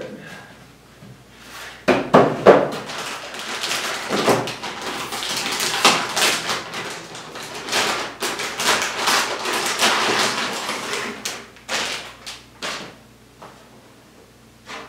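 Metallized anti-static bag crinkling and crackling as a graphics card is unwrapped and slid out of it, a dense run of crackles that dies away near the end.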